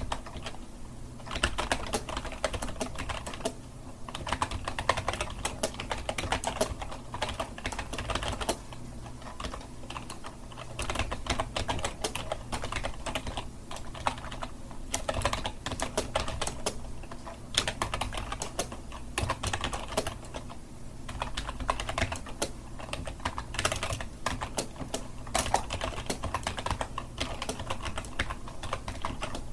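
Continuous typing on a computer keyboard: a fast, uneven run of key clicks with brief pauses every few seconds.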